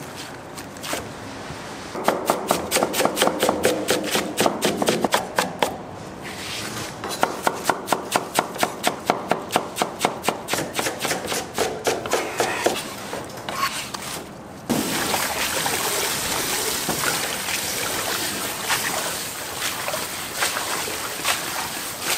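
Fast knife chopping on a cutting board, about four strokes a second, in two runs with a short pause between. About fifteen seconds in, a steady hiss takes over.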